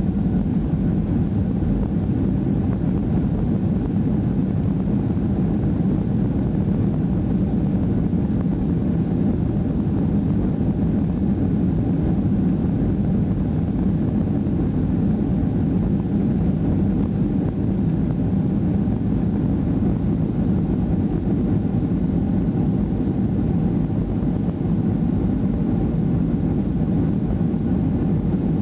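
Steady cabin rumble of a Boeing 737-800's CFM56 turbofan engines, heard from a window seat over the wing while the jet is on the ground. The low drone holds even throughout, with no spool-up.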